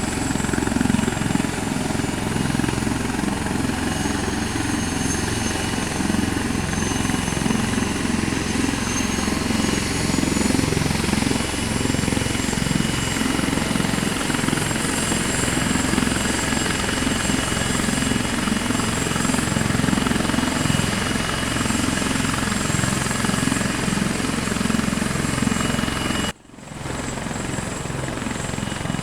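Helicopter flying, with a steady loud rotor and engine sound. The sound drops out for a split second near the end.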